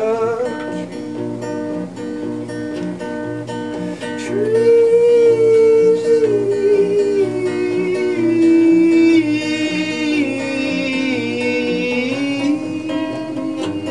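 Acoustic guitar strummed in a steady rhythm under a man's singing voice, which holds one long note on the word "trees" for about eight seconds, sliding slowly down in pitch and wavering near the end.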